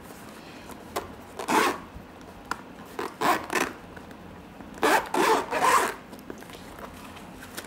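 Zipper on a moulded hard-shell headphone carrying case being drawn in short rasping runs, in three bursts, the last one the longest.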